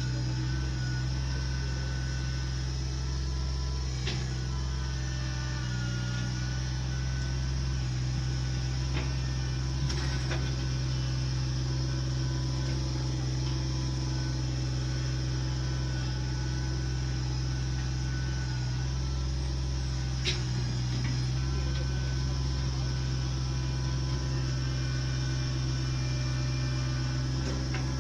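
Engine of land-clearing machinery running at a steady, constant speed, with a few faint clicks about 4, 10 and 20 seconds in.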